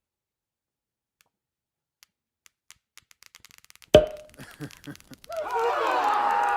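A run of quick paper clicks that speed up, typical of flip book pages being thumbed, then a sharp thump about four seconds in and a few knocks. Near the end comes a loud added sound effect of several overlapping, wavering pitched cries.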